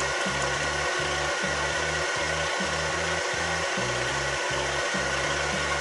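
Background music with a bass line that steps in pitch several times a second. Under it, the steady whine and cutting noise of a milling machine's face mill machining the flange face of a home-made intake manifold.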